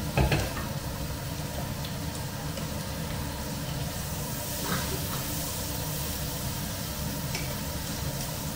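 Food sizzling in a frying pan over a low, steady rumble, with metal tongs stirring and tapping against the pan. A sharp clatter comes just after the start, and lighter clicks follow about halfway through and near the end.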